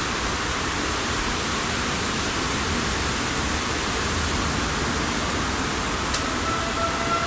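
Steady rushing noise, with a small click about six seconds in; just after it, a distant outdoor warning siren's steady tone begins to come in faintly.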